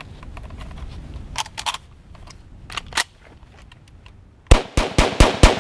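Metallic clicking of steel-cased 7.62×39 rounds being thumbed from steel stripper clips into a Yugoslavian M59/66 SKS rifle's magazine, with a sharper clack near three seconds. About four and a half seconds in, the SKS opens rapid semi-automatic fire: five loud shots at about four a second.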